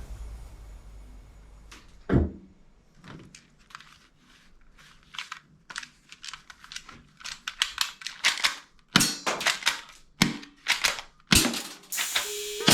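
Toy guns clicking and snapping: a run of sharp plastic clicks, with one heavier knock about two seconds in, coming thicker and louder in the second half.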